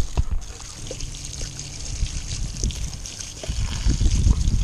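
Garden hose running, water spraying and trickling over fishing rods as a steady hiss, with irregular low rumbling on the microphone that grows louder in the last second.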